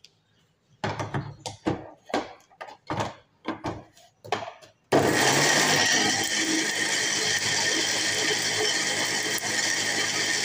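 A stainless-steel jar clatters and knocks as it is set and locked onto an electric mixer grinder. About five seconds in, the grinder's motor starts abruptly and runs steadily at full speed, grinding the coconut chutney.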